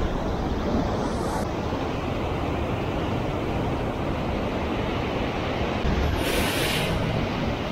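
Sea surf washing against the shore rocks: a steady rushing noise, with a brief louder, brighter hiss about six seconds in.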